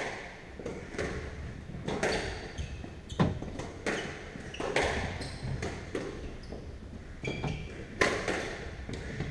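Squash rally: the ball cracking off the rackets and the court walls about once a second, ringing in the hall.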